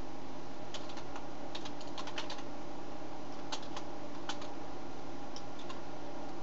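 Computer keyboard being typed on, short keystroke clicks coming in small irregular clusters, over a steady background hum.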